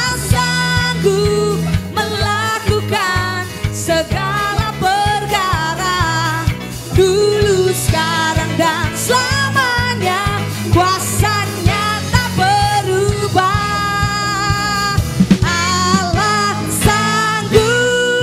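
A song: a singer's melody over a backing band with drums and guitar.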